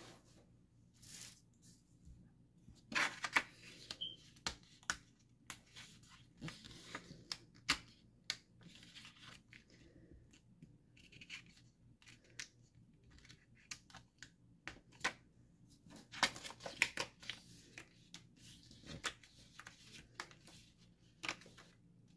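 Card stock tearing and crackling as a pre-cut paper toy piece is pushed and pulled out of its perforated sheet by hand: irregular small snaps and ticks, with louder clusters of tearing about three seconds in and again about two-thirds of the way through.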